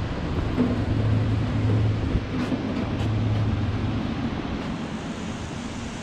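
Steady low hum of the cable-car basket's motor as the basket moves out over the canyon. The hum is briefly broken about two seconds in and fades out after about four seconds. Underneath is an even rushing noise of wind and falling water.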